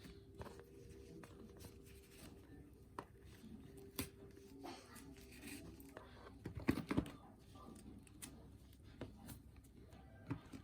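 Packaging being handled by hand: light rustling with scattered taps and clicks, and a brief cluster of louder knocks about two-thirds of the way through.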